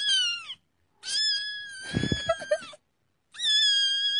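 Cat meowing and crying in three calls: a short falling meow, a longer cry with a rough, gravelly stretch in the middle, then a long, steady, high-pitched wail that starts near the end.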